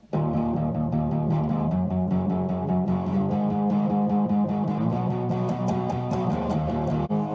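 Intro music led by electric guitar, starting abruptly and playing at a steady beat.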